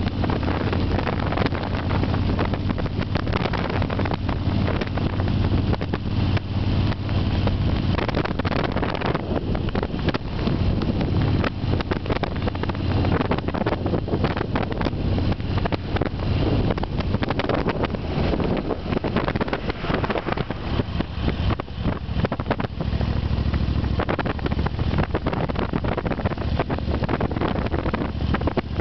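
Car driving along a paved road: steady low engine and tyre rumble, with wind buffeting the microphone.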